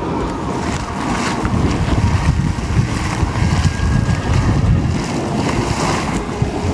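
A small geyser splashing and hissing as it spouts water and steam, with wind buffeting the microphone in uneven gusts.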